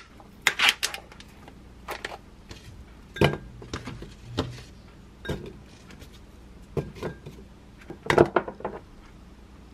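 Scattered light clicks and knocks of kitchen handling: a plastic food tub being handled and apple pieces dropped into a glass mug. A louder cluster of knocks comes about eight seconds in, as Greek yogurt is tipped from the tub into the mug.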